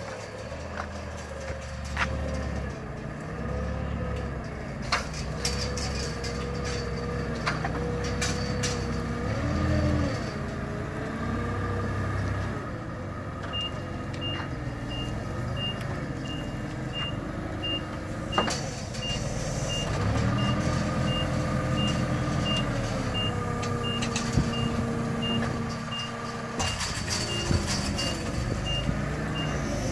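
Propane-fuelled forklift engine running, its pitch rising and falling as it manoeuvres. From about halfway through, a reversing alarm beeps steadily about twice a second. A few sharp knocks are mixed in.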